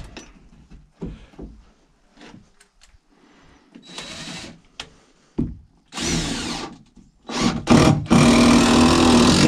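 Power drill running in several short bursts, the last and loudest about a second and a half long near the end, after a few light knocks of lumber being handled.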